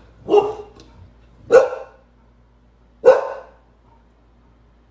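A dog barking three times, single loud barks about a second and a half apart.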